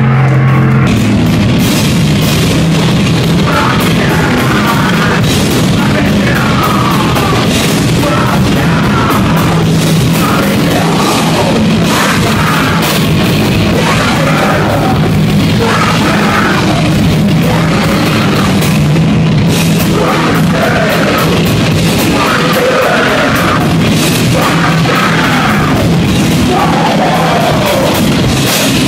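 Live heavy metal band playing loud, with yelled vocals over a dense wall of guitars and drums.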